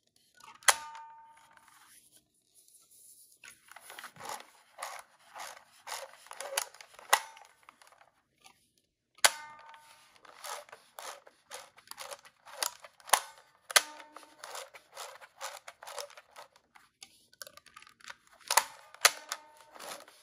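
Kodak S10 35mm camera working by hand: the shutter fires three times, about nine seconds apart, each a sharp click with a brief metallic ring. After each shot comes a run of quick ratcheting clicks as the thumbwheel film advance is wound.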